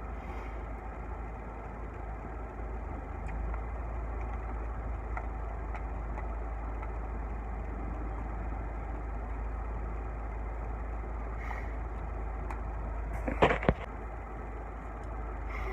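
Car engine idling, a steady low rumble heard from inside the cabin. About thirteen seconds in there is a brief loud clatter.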